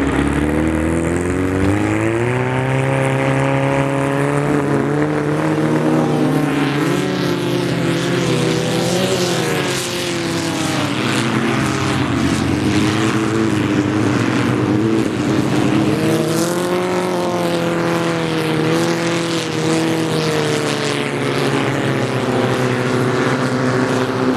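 Hydro 350 race boat's engine running loud, its pitch climbing over the first couple of seconds and then wavering up and down.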